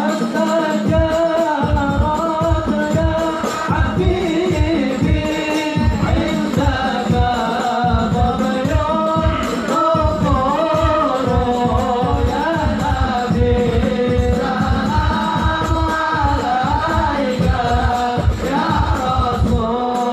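A group of men chanting Arabic sholawat praise of the Prophet in unison, the melody rising and falling, over a steady beat of hand drums at about two to three strokes a second.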